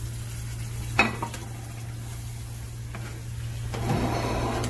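A sharp knock about a second in and a fainter one about two seconds later, then near the end a silicone spatula stirring freshly added water through potato curry in a saucepan. A steady low hum runs underneath.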